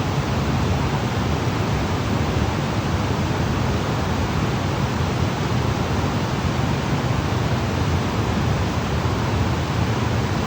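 Waterfall: an even, unbroken rush of falling water, heaviest in the low end, with no change in level.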